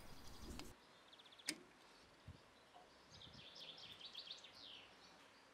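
Near silence: room tone, with a faint click about one and a half seconds in and faint, high chirping sounds near the end.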